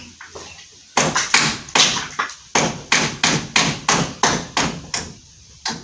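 A hammer striking repeatedly, about three blows a second, starting about a second in and going on with short pauses, most likely driving nails.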